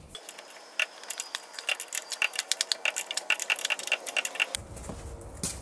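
Socket ratchet clicking rapidly, about eight clicks a second, as lug nuts are run down onto a wheel spacer's studs; the clicking stops about four and a half seconds in.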